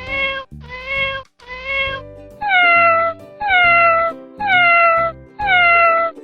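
Domestic cat meowing repeatedly over background music: three short, level meows, then a run of longer meows that each fall in pitch, about one a second.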